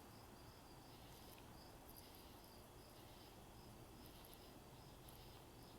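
Faint insects chirping, a high pulsed note repeating two or three times a second over quiet outdoor background.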